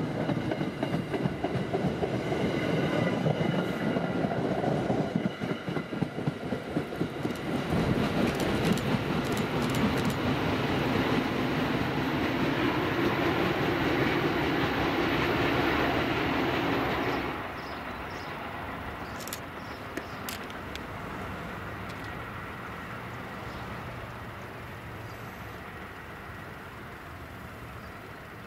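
MBTA commuter train coaches rolling past close by, steel wheels clicking over rail joints as the train pulls away. About two-thirds of the way through the sound drops suddenly to a quieter, steady rumble of a more distant train.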